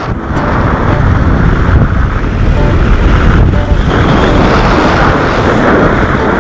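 Wind buffeting the camera microphone during a tandem parachute descent: a loud, steady rush heaviest in the low end. It begins abruptly as the music cuts out.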